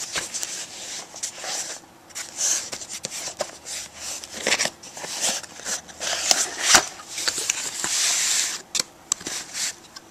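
Small cardboard product box being handled and opened: irregular scraping, rustling of packaging and light taps, with one sharp tap a little past the middle.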